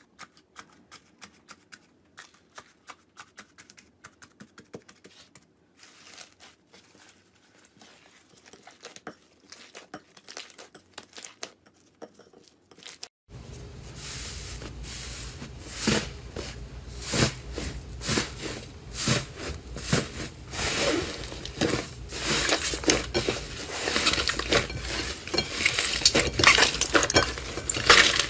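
Slime being squeezed and poked by hand, making a dense run of small clicks and crackles. About halfway through it changes suddenly to a louder clip with fuller crackling and sharper pops.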